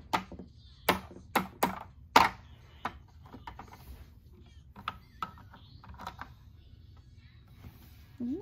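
A small plastic toy figure hopped across hard plastic playset pieces: a string of sharp clicks and taps, the loudest five in the first couple of seconds, then fainter, sparser taps.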